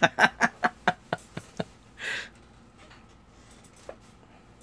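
A quick run of about eight light clicks, about four a second, slowing and fading over the first second and a half. A short hiss follows about two seconds in, then one faint click near the end.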